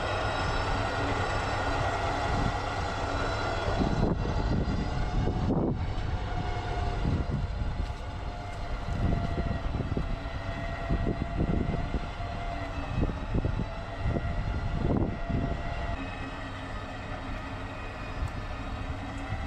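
Off-road SUV's engine running steadily, with a constant whine over the drone. From about four seconds in, irregular low rumbles come and go.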